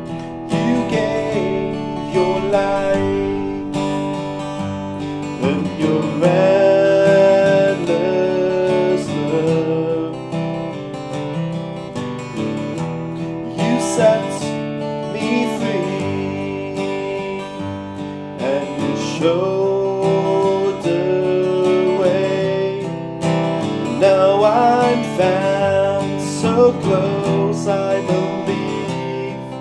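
Taylor 910 steel-string acoustic guitar played in a slow ballad, chords strummed and picked, with a man singing along over it at times.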